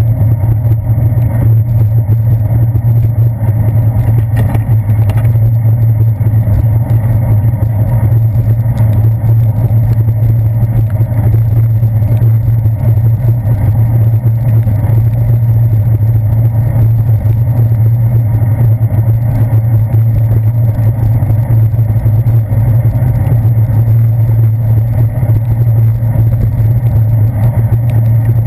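Steady, loud low rumble of a bicycle riding over wet pavement, picked up through a handlebar-mounted GoPro Hero 2 camera.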